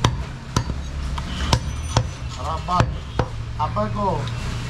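A butcher's cleaver chopping goat meat and bone on a wooden log chopping block, with sharp, irregularly spaced chops, about half a dozen in under five seconds.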